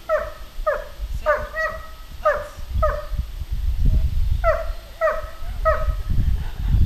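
Dog barking repeatedly in short, fairly high-pitched barks, about five in quick succession, a brief pause, then three more: a 'bark and hold', barking while holding position.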